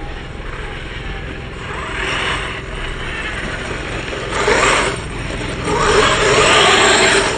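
Radio-controlled cars running past, a whirring, hissing sound that rises and falls as they come close and move away. It is loudest twice, about halfway through and again near the end.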